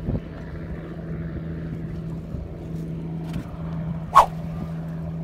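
An engine humming steadily at one low pitch, with a brief high chirp about four seconds in.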